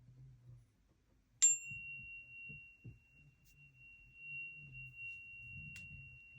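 A small singing bowl struck once, about a second and a half in, then ringing on one pure, high, steady tone; a faint click comes near the end.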